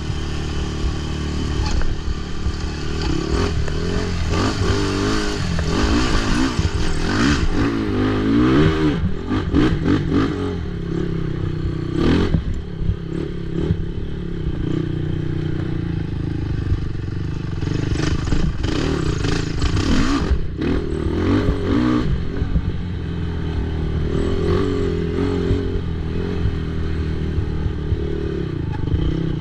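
Race ATV engine running hard, revving up and down repeatedly, with clatter and sharp knocks throughout.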